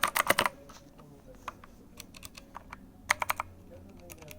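Keys of a Redragon wired mechanical gaming keyboard being typed on, its clicky switches clacking. A fast run of keystrokes comes at the start, then a few scattered faint clicks, then a quick burst of about five keystrokes about three seconds in.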